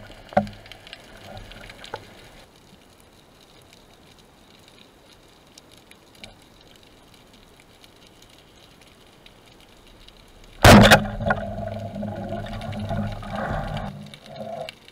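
A speargun fires underwater: one sharp, loud crack about two-thirds of the way in, followed by a few seconds of rushing water noise. A few faint clicks come before it.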